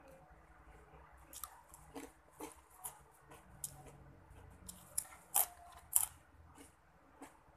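Close-up eating sounds of someone biting and chewing crunchy crinkle-cut fries: crunching with a scatter of sharp clicks, the two loudest about five and a half and six seconds in.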